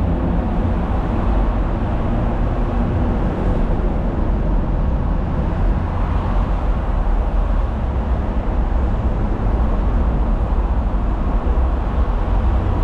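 Steady low rumble of highway traffic passing close by, heard from inside a stalled pickup truck's cab.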